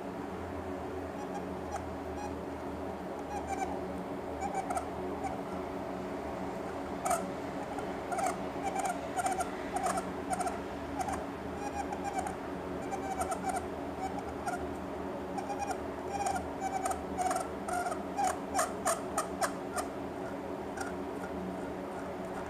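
SteelSeries Rival 700 gaming mouse's scroll wheel squeaking as it is rolled: many short squeaks with sharp ticks, in quick runs from about three seconds in and densest near the end. The squeak is the wheel's fault noise. A steady low hum runs underneath.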